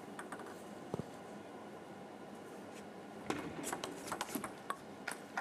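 Table tennis ball clicks: a few light taps around the serve, then from about three seconds in a quick run of paddle hits and table bounces in a rally, with crowd noise rising near the end.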